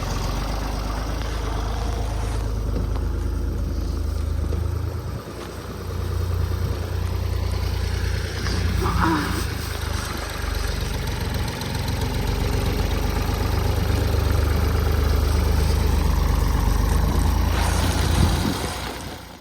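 Tractor engine running at idle: a steady low rumble that dips briefly a few times.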